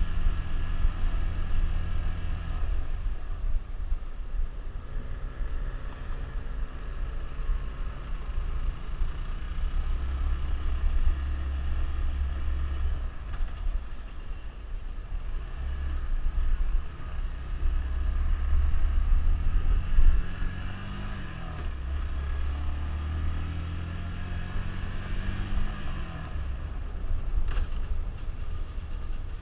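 Suzuki GZ150 motorcycle's single-cylinder four-stroke engine running at low road speed. Its note rises and falls as the throttle is opened and closed, over a heavy low rumble at the helmet-mounted microphone. A single sharp click comes near the end.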